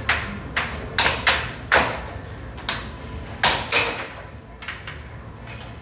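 Air hockey puck clacking sharply off the mallets and the table's rails during a rally, about eight hard cracks in the first four seconds, then lighter taps. A steady low hum runs underneath.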